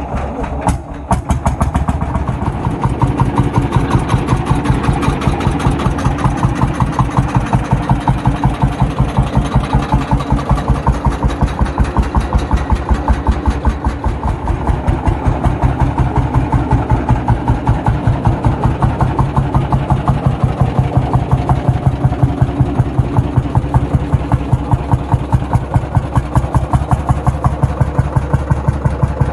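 Lanz Bulldog tractor's single-cylinder two-stroke hot-bulb engine idling. A few uneven beats about a second in, then it settles into a steady, even thump of firing strokes.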